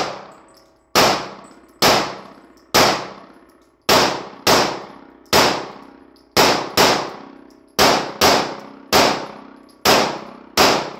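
A 9mm semi-automatic pistol fired about thirteen times, mostly about a second apart with a few quicker pairs. Each shot is a sharp crack that rings on and echoes in the enclosed indoor range.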